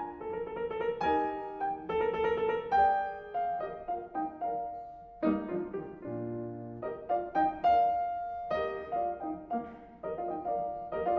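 Background piano music: single notes and chords struck in a slow, gentle melody, each note fading after it is struck.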